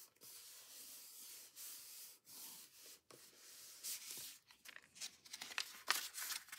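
Hands handling paper: a steady dry rubbing hiss of paper sliding and being pressed down, then louder crisp crackling rustles near the end as a book page is turned.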